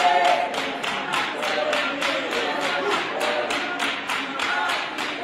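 Group of voices singing a traditional Botswana song in harmony over a steady beat of clapping, about four strokes a second.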